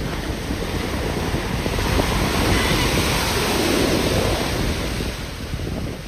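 Small ocean waves breaking and washing up the shore, the rush of surf swelling about two seconds in and easing near the end, with wind buffeting the microphone.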